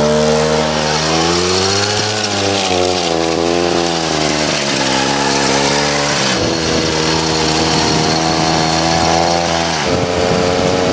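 Two-stroke chainsaw engine driving a drift trike, running at high revs under load with the pitch climbing over the first couple of seconds and rising and falling with the throttle. The revs dip briefly about six seconds in, hold steady, then drop near the end.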